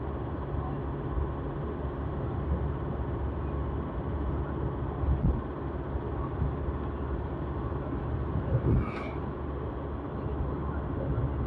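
A moving vehicle's engine and road noise make a steady low rumble. A brief knock comes about five seconds in, and a sharper knock or jolt near nine seconds.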